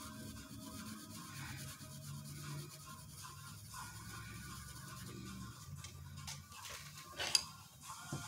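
Felt-tip permanent marker rubbing and scratching on paper as it fills in black areas, over quiet instrumental music. A sharp click near the end.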